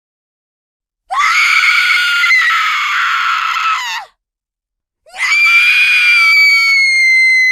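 Two long, high-pitched screams with dead silence before and between them: the first starts about a second in and lasts about three seconds, and the second starts about five seconds in and is held on one steady, slightly falling pitch.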